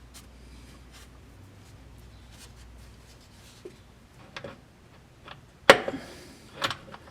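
Faint rubbing and handling noises of hands working on parts. After about four seconds come a few short clicks and knocks, the sharpest about six seconds in.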